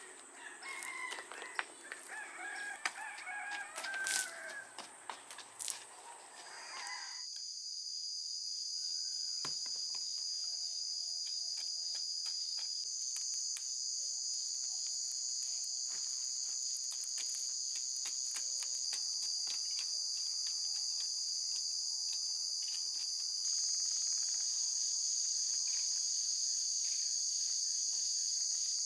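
Birds calling, a rooster crowing among them, for the first several seconds; then, from about seven seconds in, a steady high-pitched drone of night insects, crickets, with faint scrapes and knocks of earth being dug by hand.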